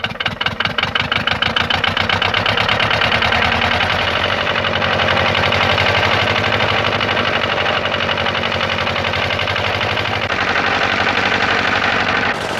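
Engine starting and picking up speed from slow, separate firing beats to a steady, rapid running beat. It is most likely the engine driving the old planer. The tone changes about ten seconds in.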